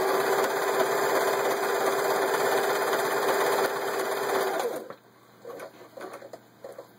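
Singer 353 Genie sewing machine running at a steady speed, sewing its built-in blind stitch pattern; it stops abruptly a little before 5 seconds in. Afterwards, a few faint clicks and rustles of handling.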